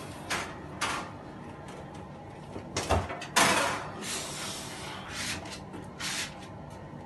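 A built-in double oven being lifted and slid into its cabinet housing: its metal casing knocks and bumps against the woodwork, with a loud bump about three seconds in, followed by a short scraping slide.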